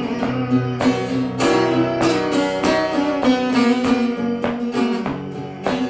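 Parlor-size acoustic guitar played solo, an instrumental passage of picked notes and chords in a steady rhythm.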